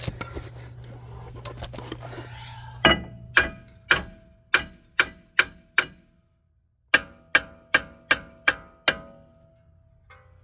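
Hammer blows on a rusted, seized brake rotor to knock it loose: a run of about seven sharp metal strikes, then about six more, roughly two a second, each leaving a short metallic ring.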